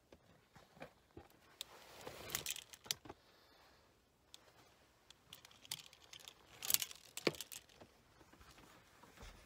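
Handling noises close by: scattered light clicks and rustling, with two louder bursts of rustling, about two seconds in and about seven seconds in.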